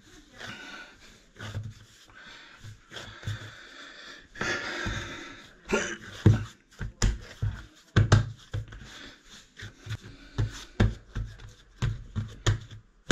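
Bread dough being kneaded by hand on a wooden worktop: irregular dull thumps as the dough is pushed down and folded over, with softer rubbing between.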